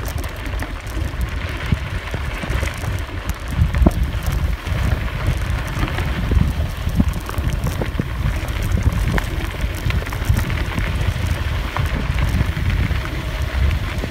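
Wind buffeting the microphone and tyres rolling over a dirt and gravel trail on a fast bicycle ride, with scattered clicks and rattles from the bike.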